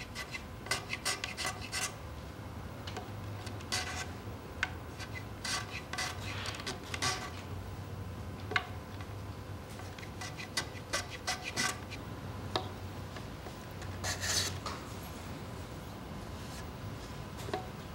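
Small Japanese shoulder plane (kiwa-ganna) shaving the edge of a wooden board in a series of short, irregular strokes, each a brief rasping swish of the blade cutting wood.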